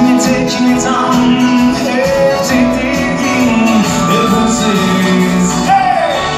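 Live band music: a male singer sings over acoustic guitars and a full band, with a falling sung phrase near the end.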